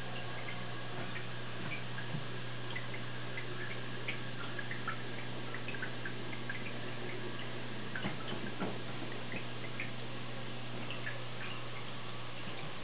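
Aquarium filter running with a steady low hum, with small irregular drips and bubble pops from the water in the tank.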